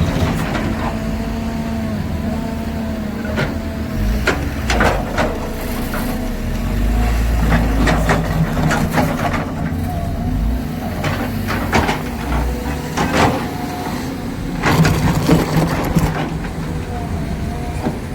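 Volvo excavator's diesel engine running under load at a mine, with a steady hum and repeated sharp knocks and clanks; a deeper low rumble swells in the middle.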